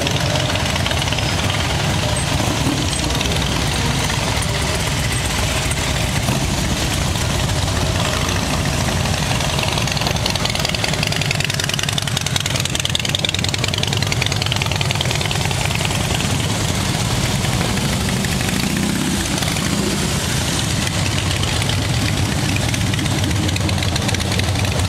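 Several motorcycle engines, many of them Harley-Davidson V-twins, running at low revs as the cruiser bikes ride slowly past one after another: a steady, uneven, loud low pulsing.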